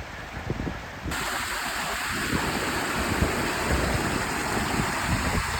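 Wind buffeting the microphone in low, gusty rumbles. About a second in, the sound cuts abruptly to a louder, steady rushing hiss, with the gusts still rumbling underneath.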